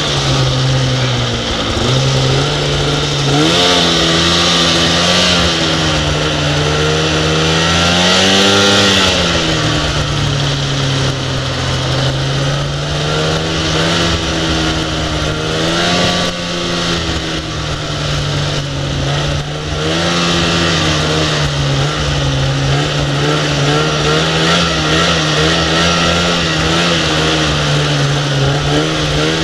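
Snowmobile engine running hard through deep snow, its pitch rising and falling repeatedly as the throttle is worked, with a steady rush of wind and snow noise over it.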